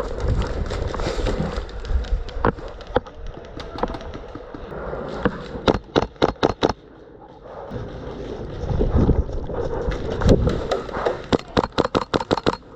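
Airsoft gunfire: a quick string of about six sharp shots near the middle and a longer rapid string near the end, with low bumping noise of movement in between.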